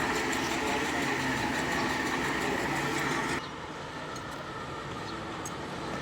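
A steady engine-like mechanical running noise that cuts off abruptly about three and a half seconds in, leaving a quieter background with a few faint clicks.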